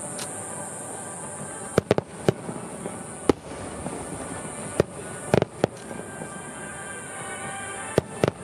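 Aerial firework shells bursting in quick succession: about nine sharp bangs at uneven intervals, the loudest a double bang about five seconds in.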